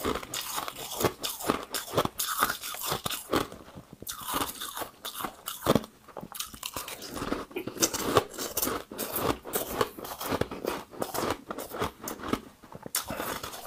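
Close-up crunching and chewing of a frosted ice ball being bitten: dense, irregular crunches several times a second, with a few short pauses.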